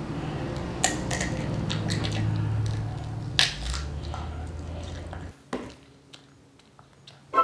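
A child biting and chewing raw broccoli, with several crisp crunches over a low room hum. About five seconds in the sound drops away to a quieter room with a few faint clicks.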